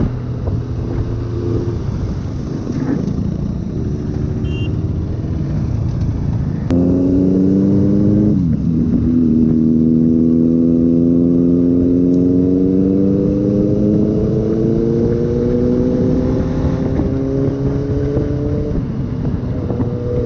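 Motorcycle engine running on the move over a steady rush of road and wind noise. About seven seconds in the engine note rises and gets louder. It drops sharply for a moment, like a gear change, then climbs slowly and steadily as the bike accelerates, easing off near the end.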